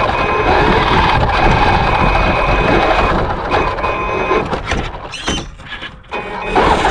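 Traxxas X-Maxx RC truck's brushless electric motor and drivetrain whining high and steady under throttle, over the rush of its studded tyres and plow blade working through snow. The sound drops away about five seconds in and comes back loud near the end.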